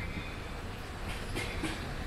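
Outdoor street ambience: a steady low rumble with a couple of faint light clicks or clinks about a second and a half in.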